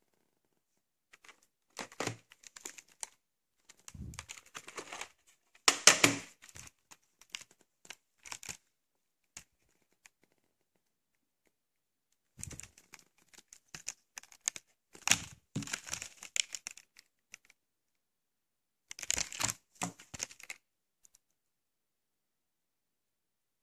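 A white plastic VHS clamshell case being handled and opened and the cassette taken out: scattered clicks, snaps and crinkly plastic noise in several short bursts with silent gaps between, the loudest about six seconds in.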